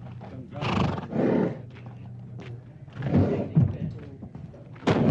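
Horses being loaded at a rodeo, making three short bursts of sound over a steady low hum, with indistinct voices mixed in.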